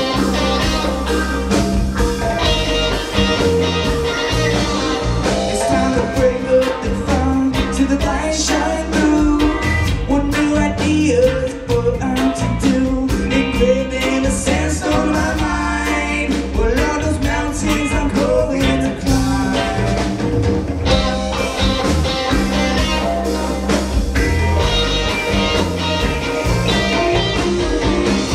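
A live band playing a song: a male lead singer over electric guitar, bass and drums.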